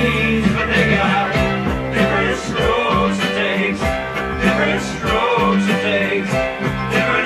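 Upbeat theme music with guitar and a steady beat.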